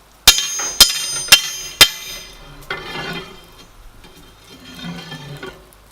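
Four ringing hammer blows on the steel crowbar, about half a second apart, as the bar is hammered straight. Softer, indistinct sounds follow.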